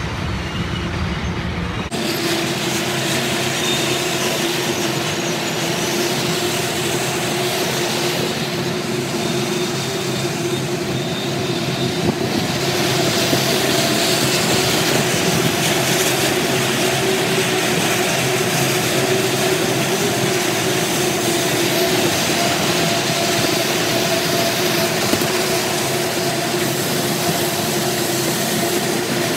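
Freight train of tank cars rolling past: a steady rumble of steel wheels on rail with a droning tone running through it. The sound changes abruptly about two seconds in.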